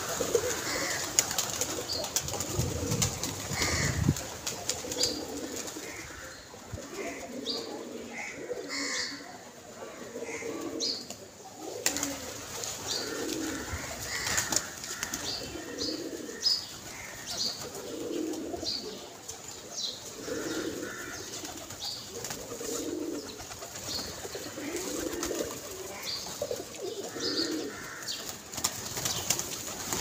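A flock of domestic pigeons cooing, low rolling coos repeating and overlapping one another, with occasional wing flapping as birds move about.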